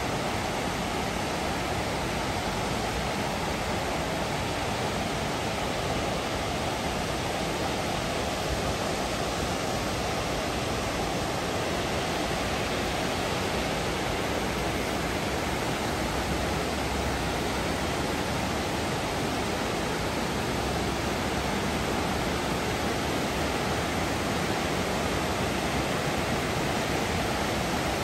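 Steady rushing of water, an even hiss with no breaks.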